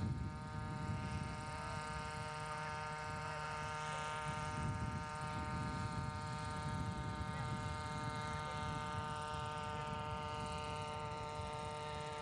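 Radio-controlled scale model Huey helicopter in flight: its small engine gives a steady high-pitched buzz over the low rush of the rotor.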